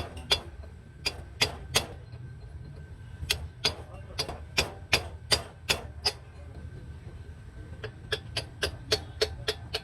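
Repeated sharp metallic taps with a short ring, in uneven runs, quickening to about five a second near the end, over a steady low hum.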